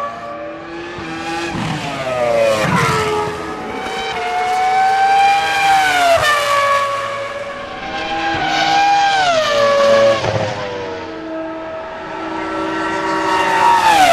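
Cosworth TJ2006 3.0-litre V10 of the Toro Rosso STR1 Formula 1 car running at high revs. Its high-pitched note climbs and then drops sharply about four times, getting louder and quieter as it goes.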